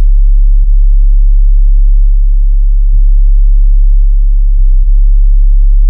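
A loud, steady, very deep electronic hum, a pure bass tone with a few faint overtones. It flickers very briefly a few times.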